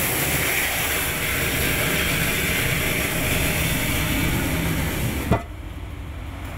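Sewer-jetting truck's engine and pump running with the steady hiss of a high-pressure water jet spraying inside a storm-drain well, clearing a blockage. The noise cuts off suddenly about five seconds in, leaving a much quieter background.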